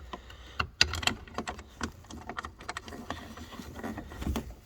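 A string of small, irregular clicks and knocks from handling tools and parts at the workbench, the sharpest about a second in.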